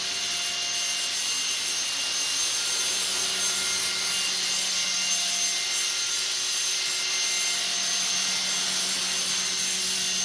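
Blade 300X electric RC helicopter in a steady practice hover: a constant motor whine and rotor noise from its carbon fiber main blades, holding an even pitch throughout.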